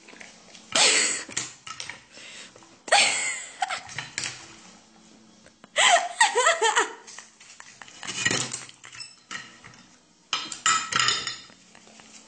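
People laughing in several loud bursts, mixed with the clinks and knocks of a plate and cutlery being handled on a table.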